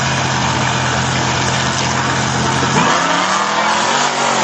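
A wheelstanding Blazer drag truck's engine held at a steady high rev on the start line, then launching about three seconds in, its note climbing as the truck pulls its front wheels up into a wheelie.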